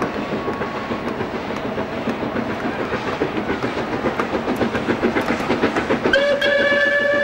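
Hedjaz Railway steam locomotive approaching, its exhaust chuffing in a quick, regular beat that grows louder. About six seconds in, its whistle starts: one long steady blast.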